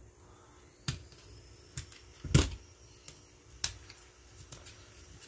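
Sparse sharp clicks and taps of hand work on an opened plastic battery pack with a utility knife, about five in all, the loudest about two and a half seconds in.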